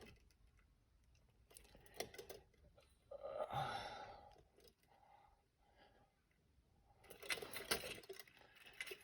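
Scattered small metallic clicks and rattles of storm door wind-chain hardware being handled as its spring is fitted, with a denser run of rattling near the end.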